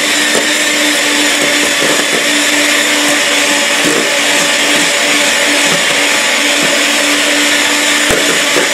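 Electric hand mixer running steadily, its beaters whisking egg whites and sugar into meringue in a stainless steel bowl: an even whir over a constant hum. The meringue is still being beaten because it is not yet holding stiff peaks.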